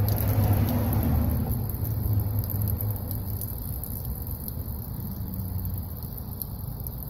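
Rainwater pouring out of the open drain-plug hole at the bottom of a 2003 Toyota Tundra passenger door and splashing onto the ground, slowly tapering off. The door filled with water because its drain holes are clogged.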